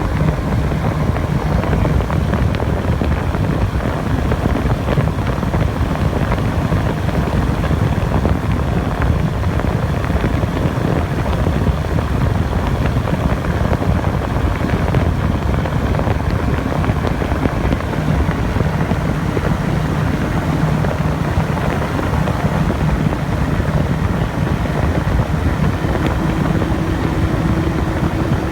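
Small drone's propellers and motors whirring steadily in flight, with a faint steady hum whose pitch shifts up near the end.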